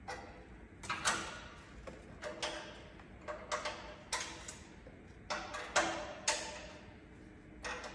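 Metal hand tools clinking and knocking: about ten irregular sharp clinks, each with a brief ring.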